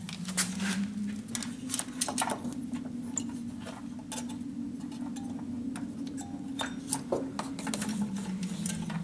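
Small irregular clicks and rattles of an HID xenon bulb and its wiring being handled and worked into a headlight housing, over a steady low hum.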